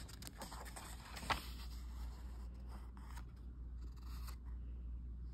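Comic book pages being turned by hand: faint paper rustling and sliding, with one short crisp tick about a second in.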